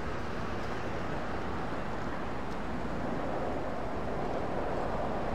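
Steady rumble of an approaching train, slowly growing louder, with a rushing sound building over the last couple of seconds.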